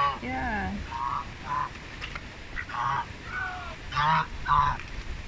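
Knob-billed domestic geese honking, about eight short calls in quick succession that bend up and down in pitch, a few of them lower and longer.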